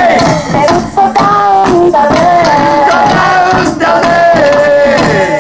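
A woman sings into a microphone, backed by a group, with a few sharp percussive strikes in the music.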